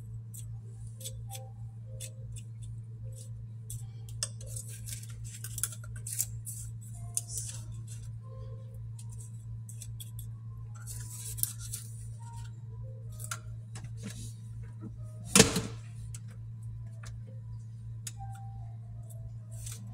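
A metal spoon scraping and scooping ground coffee from a stainless steel coffee-grinder cup into a paper-lined reusable coffee pod, with light clicks and taps throughout. There is one sharp knock about fifteen seconds in, the loudest sound, as the spoon strikes the cup or pod.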